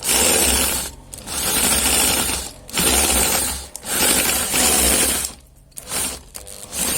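Electric drill driving a hand-crank grinder that is grinding field crabs. It runs in about five spurts of a second or so, stopping briefly between them as the trigger is squeezed and released.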